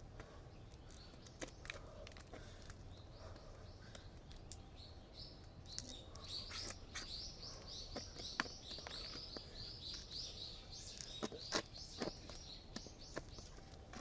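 Small birds chirping: a quick, steady run of short high chirps through the second half, over faint outdoor background, with scattered sharp clicks.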